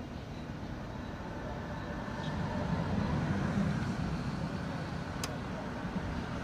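Motor-vehicle noise that swells and then eases off, as of a car passing by, with one sharp click about five seconds in.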